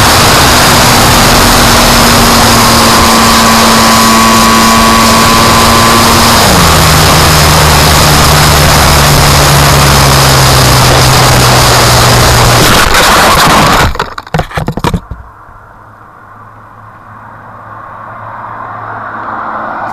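RC plane's motor running under a loud, even rushing noise. Its pitch steps down about six and a half seconds in, as if throttled back. About fourteen seconds in there is a burst of crackling, and the sound drops away sharply, then slowly swells back up.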